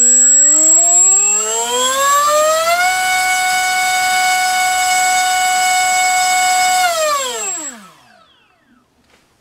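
MultiStar V-Spec 2205 2350kV brushless drone motor spinning a 4x4.5 bullnose propeller on a thrust stand, run up on a 3-cell battery: its whine rises in pitch for about three seconds, holds steady at full throttle for about four seconds, then winds down and stops about eight seconds in. A steady high-pitched whine runs alongside it while the motor is powered.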